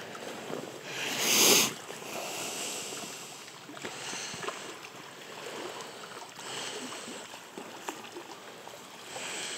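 Water splashing as a hooked chinook salmon thrashes at the surface of a shallow creek while it is played on a rod, with one loud splash about a second in.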